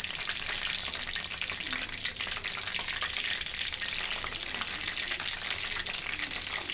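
Peanuts sizzling and crackling steadily as they deep-fry in hot oil, held in a wire-mesh strainer basket dipped into a kadai and stirred with a spoon.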